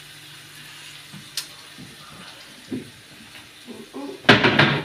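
Water from a kitchen tap running briefly into a stainless steel sink, a short loud splash near the end over a faint steady hum.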